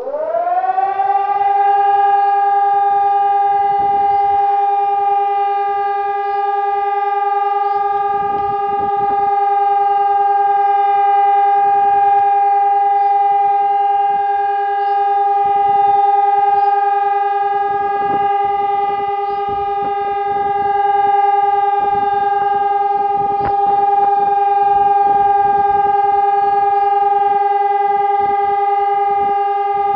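EPS2400 electronic siren sounding the German all-clear signal ('Entwarnung'): it comes on with a quick rise in pitch, then holds one steady, loud tone without rising or falling.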